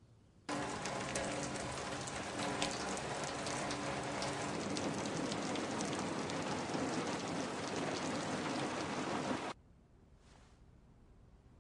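Heavy rain falling hard, a dense hiss full of sharp drop impacts. It cuts in suddenly about half a second in and cuts off just as suddenly about two seconds before the end.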